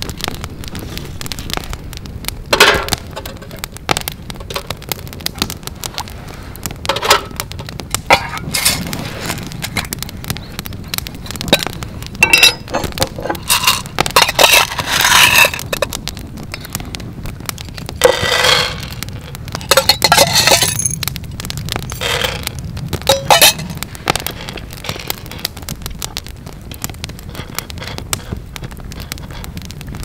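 Campfire crackling with sharp pops, then green coffee beans clinking and rattling against a metal measuring spoon and a metal tin as they are scooped and poured, in several bursts around the middle.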